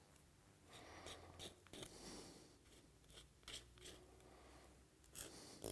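Faint, irregular short scrapes of a knife blade along lamb rib bones as the membrane and meat are cleaned off to expose the bone.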